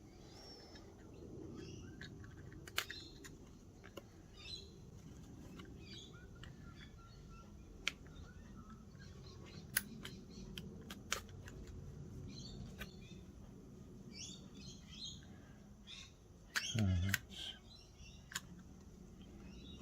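Die-cut cardboard pieces being pushed out of a punchboard sheet, with sharp snaps now and then, while birds chirp faintly in the background. About three-quarters of the way through there is one short, louder, low sound.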